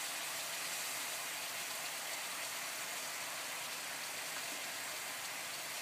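Salty water boiling hard in a hot non-stick wok: a steady, even sizzling hiss of many small bursting bubbles as the water boils off.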